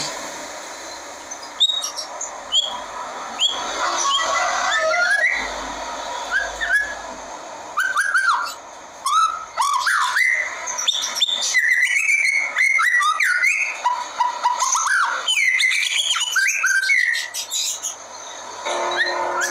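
A white-rumped shama of the black-tailed 'murai blacktail' form singing. It opens with a few short, sharp notes and then runs into a long, varied song of clear whistles and quick rising and falling phrases. A steady background hiss sits under the song at the start and returns near the end.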